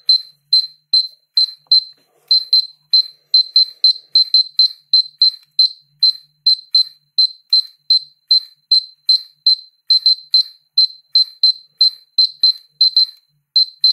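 Polimaster PM1703GNA dosimeter beeping in short, high-pitched, really loud beeps, about three a second at uneven spacing. The beep rate follows the count rate as it picks up radiation from a green glass filter laid on top of it.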